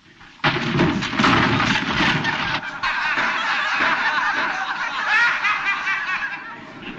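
A crowd of people laughing together, with a few knocks and clatters mixed in.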